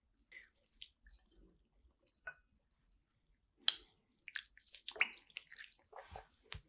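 Close-miked eating sounds of sushi: scattered wet mouth clicks and squishy chewing, with a sharp click a little past halfway followed by a brief burst of wet crackling.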